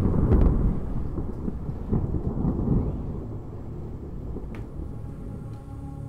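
Rolling thunder rumble, loud at first with a second swell about two seconds in, then dying away.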